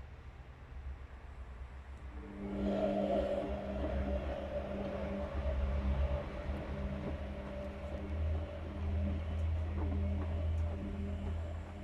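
Whirlpool FL 5065 washing machine in its wash cycle: over a low rumble, the drum motor starts about two seconds in and turns the drum with a steady whir, stopping near the end.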